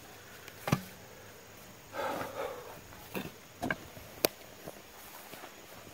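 Faint handling sounds: a few sharp clicks and knocks, with a short rustle about two seconds in.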